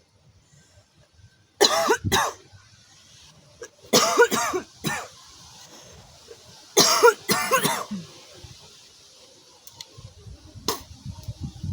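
A woman's smoker's cough, in three short harsh bouts of two or three coughs each.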